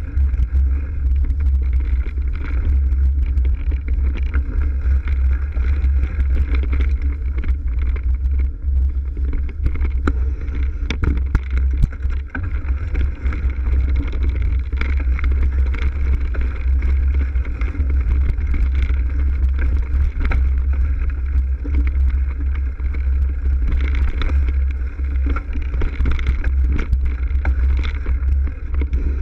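Mountain bike ridden fast over a leaf-covered dirt trail: a steady low rumble of wind and jolting on a GoPro's microphone, with tyre noise and frequent rattles and knocks from the bike over bumps.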